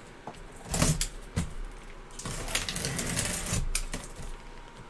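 Cardboard box being opened by hand: a few sharp knocks and clicks, then about a second and a half of scraping and rustling from about two seconds in.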